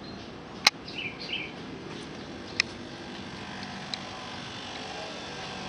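National CU-915KH mini-split outdoor condenser unit running with a steady hum, growing slightly louder near the end. Three sharp clicks stand out, the first and loudest less than a second in, and two short chirps follow at about a second in.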